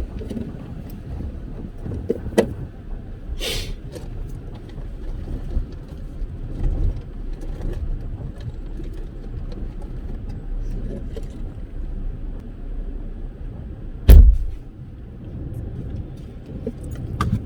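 Steady low rumble with a few scattered knocks and one loud thump about fourteen seconds in.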